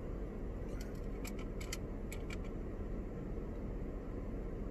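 Steady low hum of a parked car's interior, its engine or air conditioning running, with a few light clicks between about one and two and a half seconds in.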